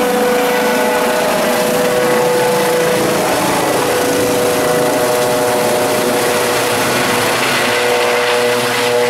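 Eurocopter EC135 twin-turbine helicopter climbing away overhead: a steady turbine whine over the rush of the rotors.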